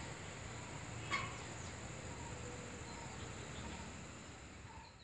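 Outdoor ambience of insects, a steady high-pitched drone over low background noise, with one sharp click about a second in. The sound fades out at the very end.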